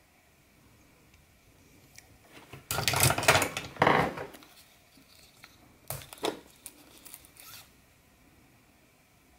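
Metal knives being handled in a pile: a loud rasping scrape of metal on metal lasting about a second and a half, then a shorter burst of scraping with sharp clicks about two seconds later.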